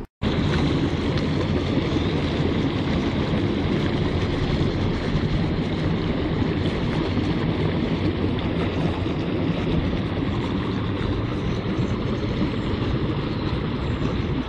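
Water welling up hard from below into a small stone-edged fountain pool, a steady, loud bubbling and splashing.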